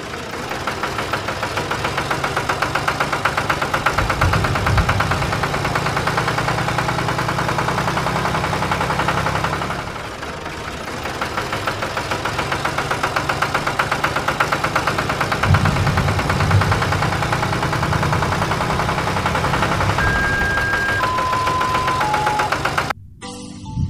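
Tractor engine running steadily with a rapid knocking chug. It dips briefly about ten seconds in and picks up again. Near the end come three short steady tones, each lower than the last, and the engine sound cuts off suddenly.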